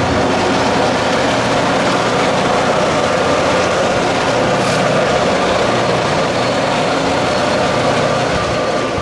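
Iowa Interstate diesel freight locomotives running under power alongside, a steady heavy engine drone mixed with the road noise of the pacing car.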